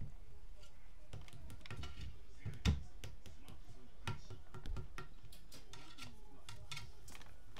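Scattered light taps and clicks as a cat bats at a fluffy teaser toy on a stick over a table, with one louder thump a little under three seconds in.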